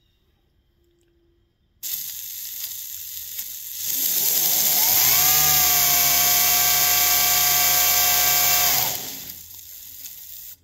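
A 1x30 belt grinder's variable-speed motor and belt switch on suddenly with a steady hiss. About two seconds later the speed is turned up: a whine rises in pitch and holds steady and loud. Near the end it slows down and then cuts off abruptly.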